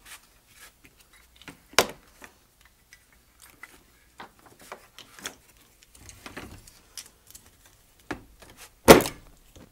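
Small metal carburetor parts and tools clicking and clinking as a one-barrel carburetor is handled and worked on. There is a sharp clack about two seconds in, a patch of light rattling around the middle, and the loudest knock near the end.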